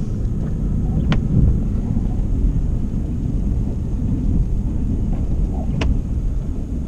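Low, steady rumble of a Ford F-350 Super Duty pickup driving, heard from inside the cab. Two sharp clicks stand out, about a second in and near the end.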